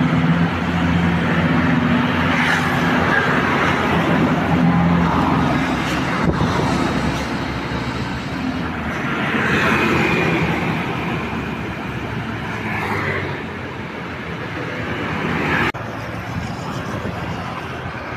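Roadside traffic: passing vehicles' engines and tyre noise, with a steady engine drone through the first few seconds.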